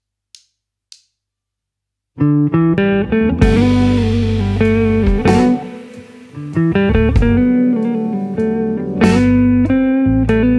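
Two short ticks, then about two seconds in a neo-soul/funk band starts: electric guitar over bass and drums.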